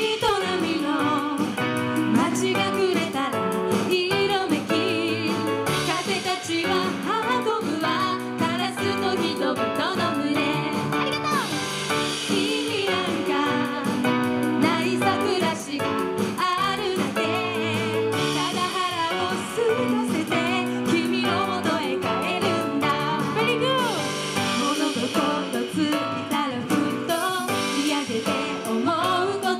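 Live performance of an Okinawan folk-pop song: women singing over a steady musical accompaniment.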